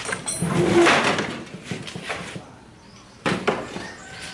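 Rusted metal frame being handled and loaded onto a handcart: clattering and scraping of metal, a quieter lull, then a sharp clunk about three seconds in followed by further knocks.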